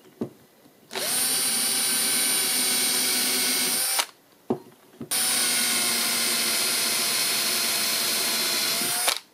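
Cordless drill with a small 1.5 mm bit drilling holes into an aluminium rail, running steadily twice: about three seconds, a short stop, then about four seconds. Each run is preceded by a brief click.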